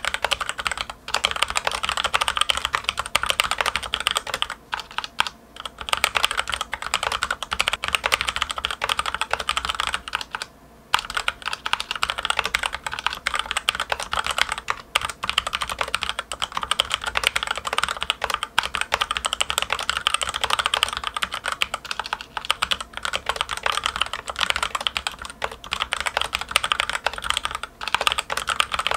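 Fast, continuous typing on a Logitech K835 TKL mechanical keyboard with TTC Red linear switches and ABS keycaps: a dense clatter of keystrokes with a short pause about ten and a half seconds in.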